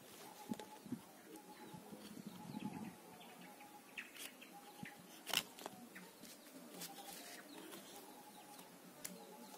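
Leafy twigs of a bonsai rustling and clicking as they are handled by hand, with one sharp click about five seconds in. A bird repeats a short, even call in the background.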